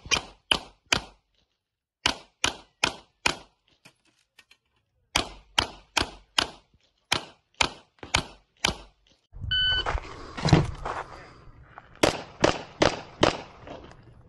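Pistol shots fired in rapid strings of several shots each, with short pauses between strings. About nine and a half seconds in, a short electronic shot-timer beep starts another string of shots.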